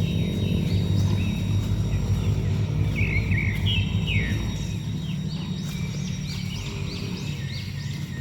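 Small birds chirping repeatedly in quick, rising-and-falling notes over a steady low rumble.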